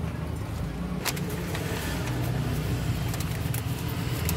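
Steady low rumble of a motor vehicle engine running close by, with a few sharp clicks over it, about a second in and twice near the end.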